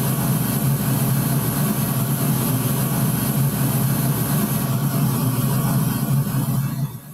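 Pink-noise test signal played through a mid-high loudspeaker for a measurement-microphone transfer function: a loud, steady rushing noise, heaviest in the low-mids. It cuts off abruptly near the end.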